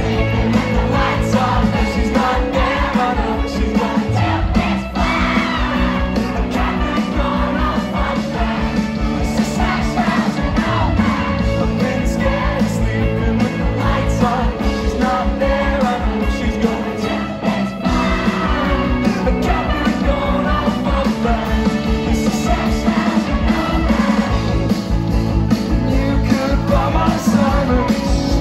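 Live rock band playing a song: electric guitars, bass guitar and a drum kit with singing, heard from among the audience.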